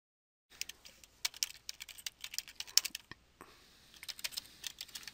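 Typing on a computer keyboard: an uneven run of quick key clicks, starting about half a second in.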